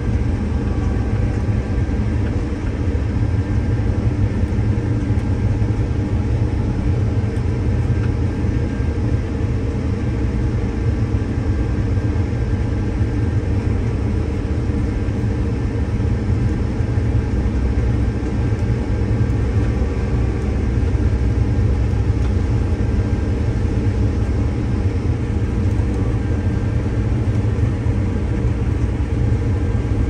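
New Holland combine running steadily while cutting soybeans with a MacDon draper header, heard from inside the cab: a constant low drone with a steady hum over it.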